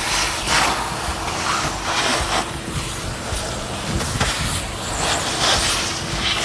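Car-wash vacuum cleaning a car's trunk. A steady motor hum runs under the rushing suction, which swells and fades as the nozzle moves over the carpet and the rubber seals.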